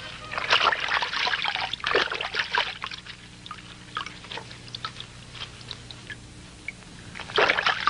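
Water splashing and trickling in irregular bursts, heaviest in the first few seconds and again near the end, with scattered single splashes between, over a faint steady low hum.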